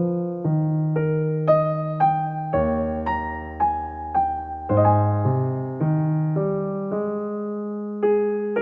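Background music: a slow, gentle electric piano melody with sustained bass notes.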